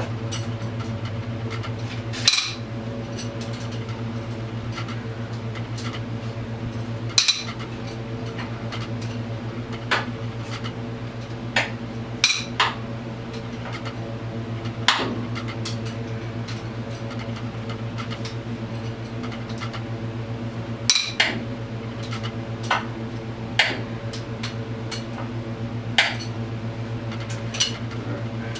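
Hand tools on the ATV's engine: about a dozen sharp metal clinks and clanks, scattered and irregular, as the head bolts are worked loose. A steady low hum runs underneath.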